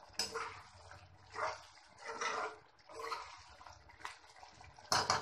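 Spatula stirring thick chicken curry gravy in a nonstick pan, with wet squelching and scraping strokes repeating about once a second and a louder stroke near the end.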